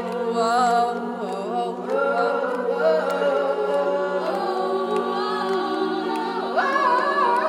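Female a cappella ensemble singing close harmonies, with no lyrics the recogniser could catch, over a low note held throughout. The upper voices move and the chord shifts about two seconds in, with a rising line near the end.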